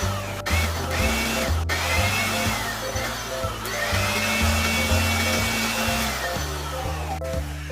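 Ingco 400 W electric air blower running in bursts: a rushing hiss and motor whine that rise as it spins up and fall away as it is switched off, several times, over background music.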